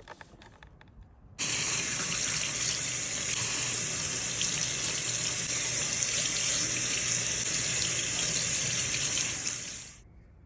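Water running from a tap in a steady stream. It turns on abruptly about a second and a half in and stops just before the end.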